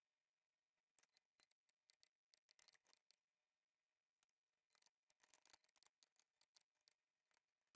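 Near silence, broken by faint scattered clicks and ticks, in clusters about a second in and again around five seconds in.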